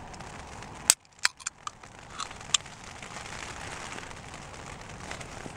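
A drinks can and its plastic cap being handled: one sharp click about a second in, then five or six more clicks and taps over the next second and a half. Under them runs a steady patter of rain on the tent.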